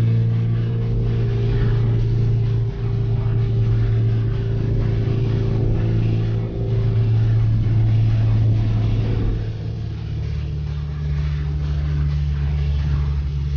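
Car engine and road noise heard from inside the cabin while cruising, a steady low drone. About ten seconds in the drone shifts to a different, lower note.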